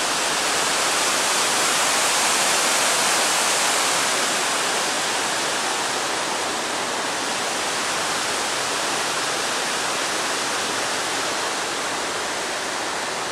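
Steady rushing of fast-flowing water, unbroken throughout.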